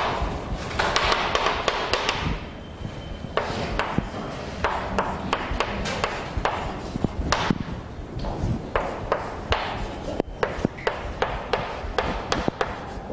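Chalk writing on a blackboard: an irregular run of sharp taps and short scratchy strokes, with a longer scraping stretch in the first couple of seconds.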